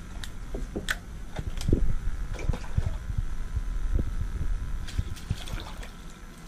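Irregular knocks, clicks and splashes as a small sheepshead is reeled up to the side of a plastic kayak, over a steady low rumble.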